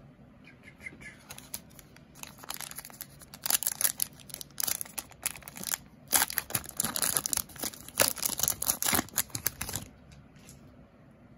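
A 2009 Upper Deck Goudey trading card pack being pulled from its box and its wrapper crinkled and torn open, in a dense run of irregular crackles and rips from about two seconds in until near the end.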